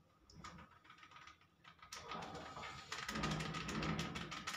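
Jaljeera masala sprinkled from a small spice packet shaken and tapped over a steel bowl of paneer: a fast run of small crinkles and clicks that starts about two seconds in and grows louder.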